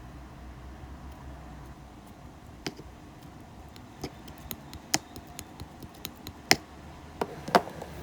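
A dozen or so irregular light clicks and taps over a faint low hum, starting a few seconds in; the two loudest come near the end.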